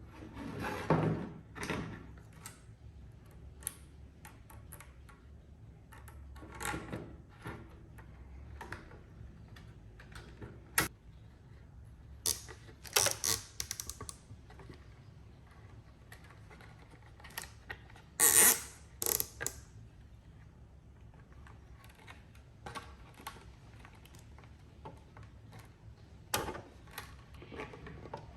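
Hands assembling 3D-printed plastic parts: scattered clicks, knocks and rattles at irregular intervals, with a few louder clattering clusters.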